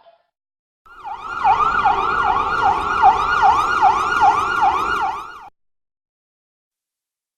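Emergency-vehicle siren in a fast yelp, its pitch dipping and sweeping back up about twice a second; it starts about a second in and cuts off suddenly.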